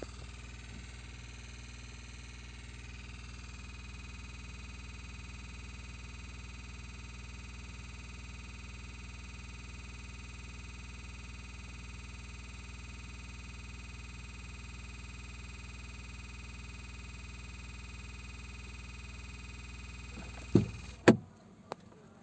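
2021 Volkswagen Tiguan running with a steady low hum and a thin high whine, the car having developed an unfamiliar noise that the owner cannot place. Near the end two loud knocks, and the running sound stops.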